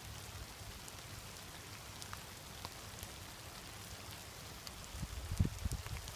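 Faint outdoor background hiss with scattered light ticks, and irregular low rumbling from about five seconds in.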